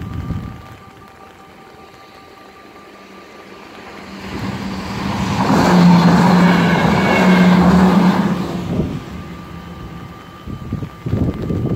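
NS Sprinter electric train passing through the level crossing. Its rumble swells from about four seconds in, is loudest for a few seconds with a steady low hum, then fades away. The crossing's warning bell rings steadily in the background.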